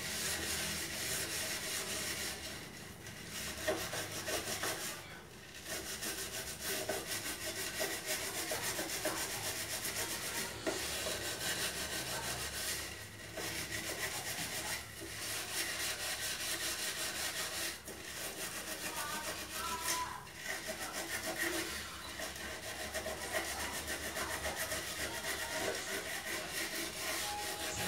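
Stove being scrubbed clean with liquid soap: steady rubbing and scouring strokes, broken by short pauses every couple of seconds.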